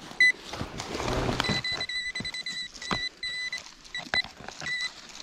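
Nokta metal-detecting pinpointer beeping with a steady high tone that switches on and off repeatedly as it is worked down into a hole, signalling metal deep inside a hollow stone wall, with a few sharp knocks of the probe against stone.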